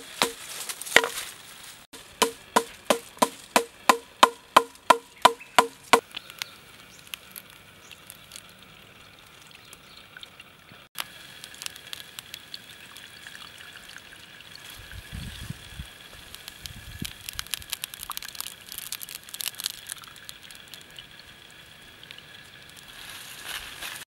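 A wooden stick knocking a knife blade down into a green bamboo stalk to split it: about two or three hollow, ringing knocks a second, the loudest sound, stopping about six seconds in. After that come quieter rustling and scraping as a bamboo shoot is handled, over a steady high whine.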